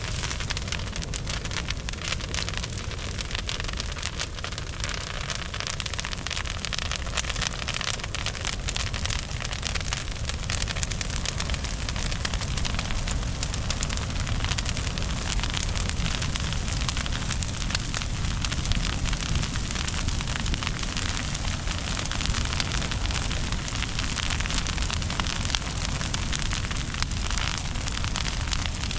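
Burning brush pile crackling and popping steadily over a low rumble of the fire.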